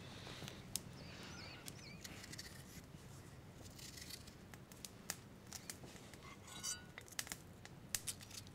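Small knife scrapes and sharp clicks of potatoes being peeled by hand, scattered and irregular over a faint steady background hum.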